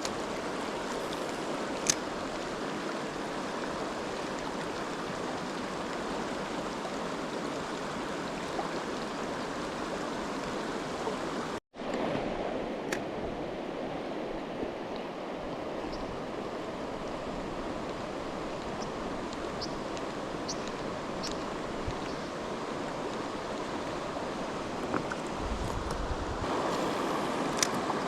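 Mountain stream water rushing steadily, with a few faint ticks. The sound cuts out for an instant about twelve seconds in.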